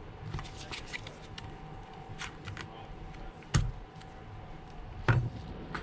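Light plastic clicks and scrapes of a thin plastic pry card being worked under a phone battery held down by adhesive, with two sharper knocks about three and a half and five seconds in.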